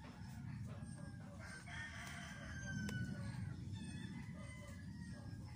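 A rooster crowing faintly in the background, one drawn-out call falling in pitch about two seconds in, over a steady low rumble. A single sharp click comes near the end of the call.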